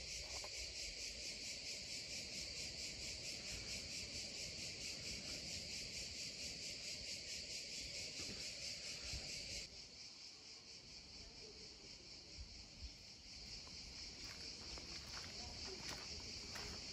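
Cicadas chirring in a faint, steady, high-pitched buzz that drops a little in level about ten seconds in.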